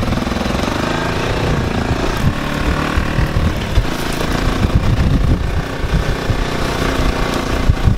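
Four-wheeler (ATV) engine running under way across rough grass, with irregular low thumps from about the middle on.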